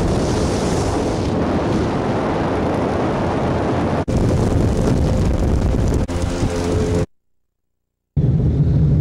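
Motorboat running under way: a loud, steady rush of engine and wind on the microphone, broken by a short cut about four seconds in. Near seven seconds the sound stops dead for about a second, then the engine comes back as a steadier low hum.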